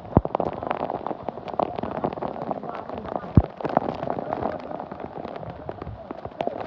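Rapid, irregular crackling and knocking over a steady rushing noise, with a sharper knock about halfway through, and indistinct voices.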